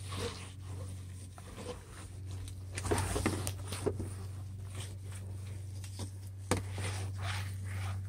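A clay mitt wet with car wash soap being rubbed back and forth over a truck's painted surface, making a faint, scratchy sound in uneven strokes. The scratchiness is the clay picking up grit and bonded contaminants from the paint; a clean surface goes quiet and smooth.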